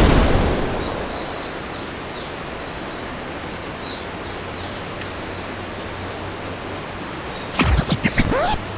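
A steady high-pitched insect drone over an even outdoor hiss, opening with the fading tail of a loud burst. A few knocks and a short rising call come near the end.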